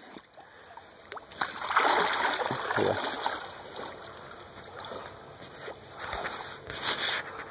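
Water splashing and sloshing from a dog swimming close by, loudest about two to three seconds in, with a few sharp knocks.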